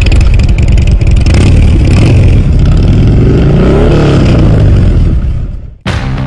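A motorcycle engine revving hard and loud, its pitch climbing and falling back about two-thirds of the way through, then cutting off suddenly near the end as rock music starts.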